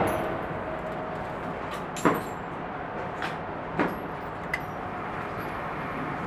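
The reverberation of an AR-15 rifle shot dies away in an indoor shooting range over a steady background noise. A few sharp knocks follow, the loudest about two seconds and nearly four seconds in.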